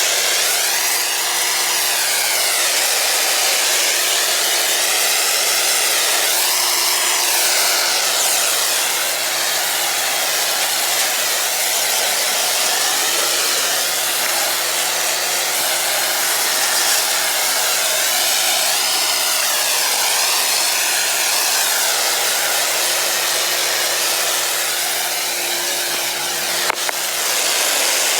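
Pressure washer spraying water: a loud, steady hiss over the hum of its motor, with a short click near the end.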